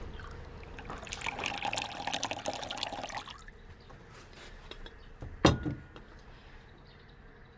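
Tea poured in a stream from a teapot into a small ceramic cup, from about one second in to just past three seconds. A single sharp knock comes about five and a half seconds in.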